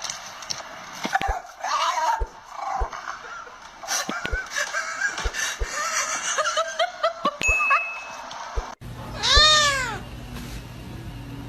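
A cat's calls: a run of short, high chirping mews with a few clicks, then one loud, long meow that rises and falls in pitch, about three-quarters of the way through.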